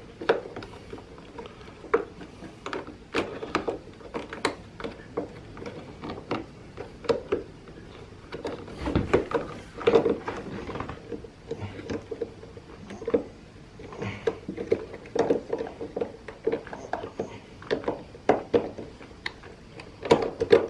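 Irregular clicks, taps and knocks of hands handling and seating a parking brake lock on a Can-Am Ryker's brake lever.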